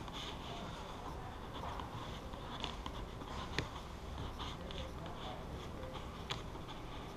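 Squeegee rubbing and scraping along a vinyl stripe graphic as it is pressed down onto a car's rear spoiler to push the air out, faint, with a few short ticks.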